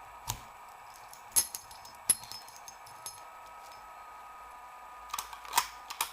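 ERA night latch being handled and worked: sharp metallic clicks and clacks, a few spaced apart, then a quicker run of clicks near the end, over a faint steady hum.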